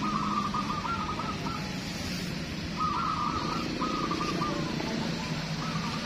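Caged zebra doves (perkutut) cooing: phrases of quick rolling coos, one from the start to about a second and a half in and another group from about three to five seconds, over a steady low background hum.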